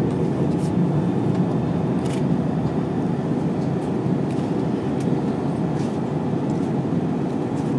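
Steady cabin noise inside an Airbus A320 airliner on approach, from a seat beside the wing: the constant low rumble of the twin turbofan engines and the rushing air, holding even throughout.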